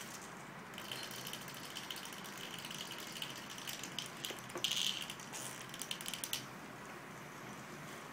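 Small mechanical toy cockroach running, a rattling whir of gears with rapid clicks. It starts about a second in, is loudest a little past the middle, and stops suddenly after about six seconds.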